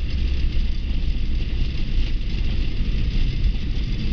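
Flight-deck noise of a Boeing 747 on its landing rollout: a steady low rumble from the runway and engines, with a hiss over it.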